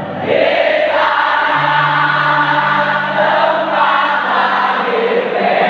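Live band music in a large arena, with a big crowd singing along loudly, heard from the stands.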